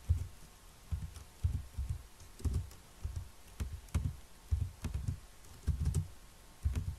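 Typing on a computer keyboard: separate keystrokes at an unhurried pace of about two a second, each a dull thud with a light click on top.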